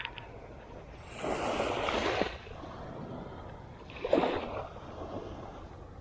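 Small waves washing up on a sandy beach, with two swells of wash, one about a second in and another about four seconds in.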